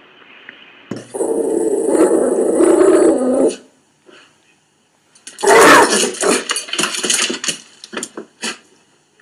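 A dog growling and barking. There is a sustained loud stretch about a second in, and from about halfway a run of short, sharp sounds that thins out.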